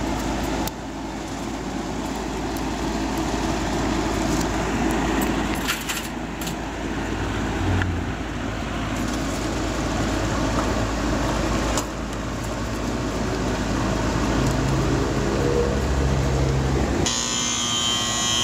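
Goodman AC condenser unit running with a steady mechanical hum and a rattling fan cage. Near the end a loud electrical buzz starts suddenly and lasts a few seconds: the compressor trying to start but not running.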